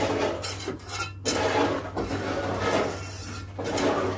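Scraping and clinking of metal tools on hard surfaces, uneven and continuous, over a steady low hum.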